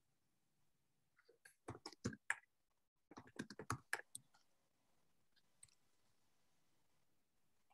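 Computer keyboard keys typed in two short, quick flurries of clicks, with a brief pause between them; otherwise near silence.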